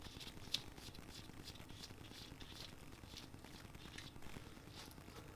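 Faint scattered light clicks and ticks of small steel parts being handled: connecting-rod cap nuts being taken off the rod bolts by gloved hands.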